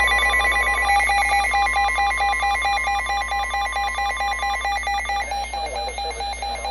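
Weather radio emergency alert tones announcing a severe thunderstorm warning: a rapidly pulsing electronic beep over the steady warning alarm tone. The steady tone stops about two-thirds of the way through while the pulsing beep goes on.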